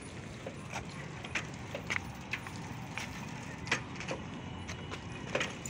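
Bicycle rattling on a paved path: irregular light clicks and knocks, several a second, over a steady low rumble.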